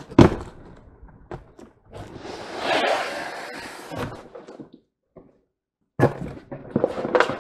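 A cardboard shipping box being handled and torn open: a sharp thump at the start, then a long scraping, tearing noise as the taped flaps are pulled apart. Near the end come knocks and rustling as things inside the box are moved about.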